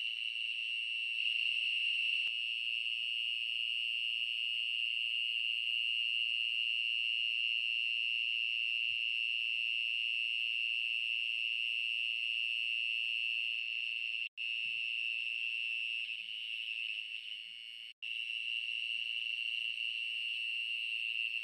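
A steady high-pitched chorus of night insects, a continuous shrill drone. It cuts out abruptly for a moment twice in the second half.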